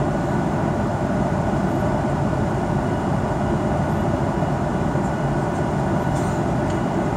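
Steady cabin noise inside a Boeing 737-800 on final approach: the CFM56 engines and air rushing over the airframe make an even, unbroken rumble and hiss.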